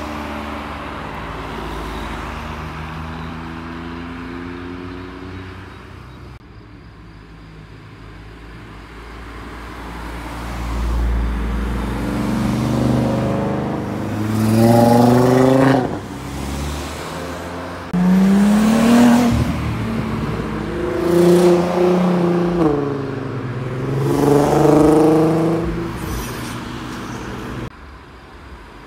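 Performance car engines accelerating hard past the roadside, revving up in several rising pulls, each broken off by a gear change. The loudest pulls come in the middle and later part.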